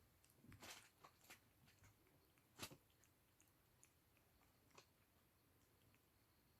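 Near silence with a few faint sharp clicks and a brief rustle.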